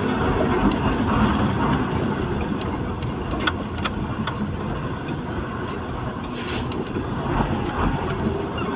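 Truck engine running as it drives slowly in traffic, heard from inside the cab, with scattered clicks and rattles.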